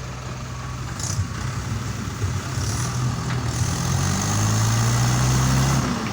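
Heavy diesel machinery engine running steadily, working harder and louder from about three and a half seconds in, then easing off near the end.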